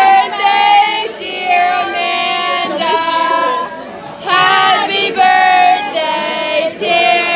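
A group of voices singing a birthday song together, in long held notes with short breaks between lines and a quieter stretch about four seconds in.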